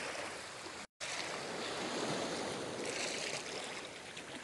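Steady outdoor noise of wind and water at a calm salt-lake shore, with one brief cut to total silence about a second in.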